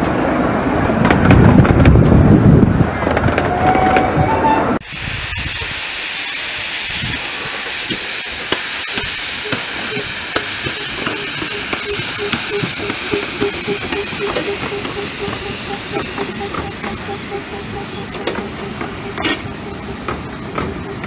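15-inch gauge passenger carriages rolling past with a low rumble. About five seconds in, this cuts abruptly to steady steam hissing from a standing miniature steam locomotive, which continues to the end.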